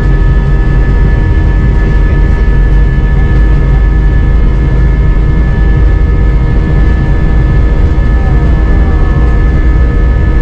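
Airbus A320 jet engines heard from inside the cabin as the plane rolls along the runway: a loud, steady rumble with several high whining tones held level.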